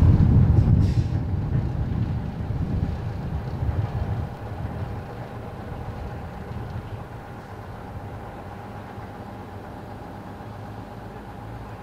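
Truck engine idling steadily. Over the first four seconds wind rumbles unevenly on the microphone.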